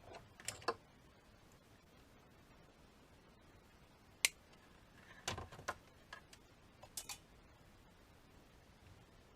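Scattered light clicks and taps of small parts being handled during work on an impact driver. They come in small clusters, with the sharpest single click about four seconds in.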